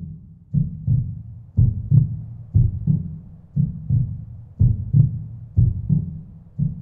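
Heartbeat sound effect: low double thumps, lub-dub, about once a second, steady and even.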